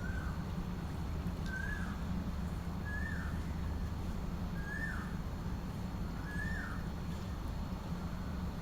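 A bird repeating one short whistled call five times, roughly every second and a half, each note sliding briefly downward, over a steady low rumble.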